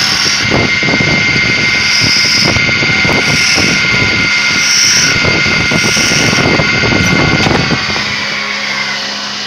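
Belt-driven wood lathe running with a steady motor whine while sandpaper is pressed against the spinning wooden spindle, adding a rough, scratchy hiss. Near the end the scratching stops and the whine slides down in pitch as the lathe slows.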